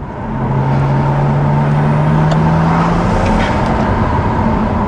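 BMW N54 twin-turbo straight-six pulling under throttle, heard from inside the car's cabin: after a brief drop in level at the start, the engine note rises slowly for about three seconds over road noise. Somewhere in the run there is a brief odd noise that the driver takes for a weird blow-off valve noise, or possibly a tyre scraping in the wheel arch.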